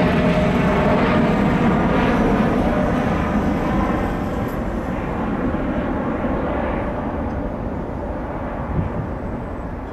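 Jet roar from the twin Rolls-Royce Trent 1000 turbofans of a Boeing 787 Dreamliner climbing away after takeoff, fading steadily as it recedes. The higher part of the roar dies away first, leaving a low rumble.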